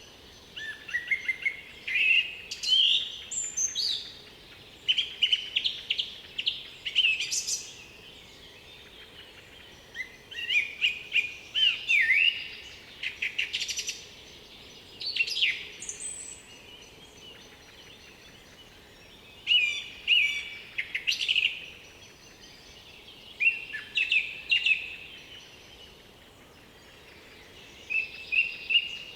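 Songbird singing in short warbling phrases, each a few seconds long with rising notes and high twittering ends, separated by pauses of one to a few seconds, over a faint steady forest background.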